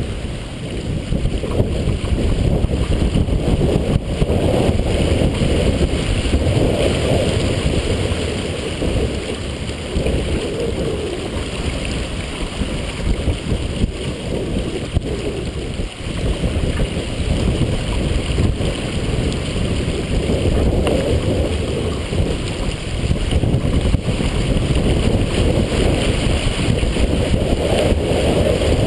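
Strong wind buffeting the microphone over water rushing and splashing along the hull of a heeled sailboat, the noise swelling and easing every few seconds.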